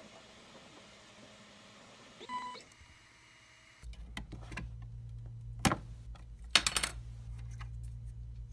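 Faint whir of a 3D printer at work, then sharp clicks and snaps as the freshly printed plastic key is pried off the printer's glass bed: one about two seconds after the shot changes and a quick cluster about a second later, over a steady low hum.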